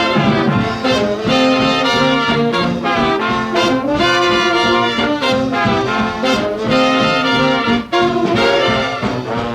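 Swing big band playing from a 1941 78 rpm record: the brass section, with trumpets and trombones, plays together over saxophones and rhythm.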